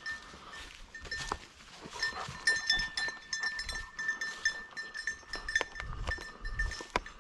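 A small metal bell jingling and ringing irregularly, struck again and again in quick clusters, over a low rustling of movement through brush.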